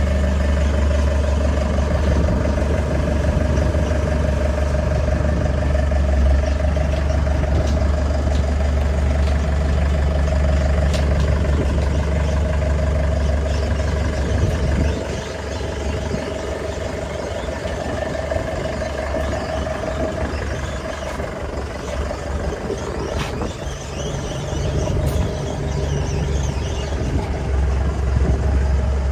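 Tracked pile driver's engine running steadily with a constant whine. Its deep low hum drops away about halfway through and comes back near the end, with a few sharp clicks.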